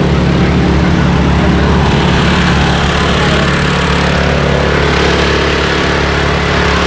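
An engine running steadily at an even pitch, with a low hum.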